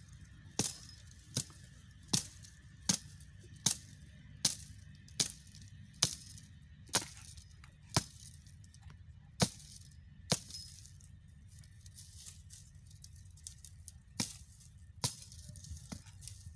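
Dry shrub stems being chopped with a hand blade: a steady run of sharp cracks about one every three-quarters of a second, a pause of a few seconds past the middle, then a few more strokes near the end.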